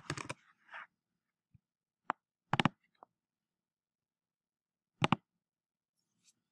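Sharp clicks of a computer keyboard and mouse while entering and submitting a search: a short run at the start, a few between two and three seconds in, and a single click about five seconds in.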